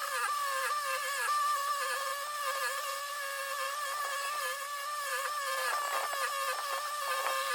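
A small high-speed motor whining at a steady high pitch, the pitch dipping briefly now and then.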